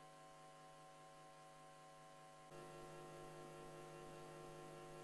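Faint, steady electrical hum made of several constant tones, with no other sound; it gets a little louder about halfway through.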